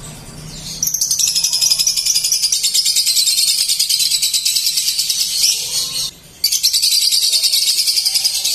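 Lovebird giving a long, rapid, high-pitched chattering trill, the drawn-out chatter that lovebird fanciers call 'konslet'. It starts about a second in, breaks off briefly near six seconds, then resumes.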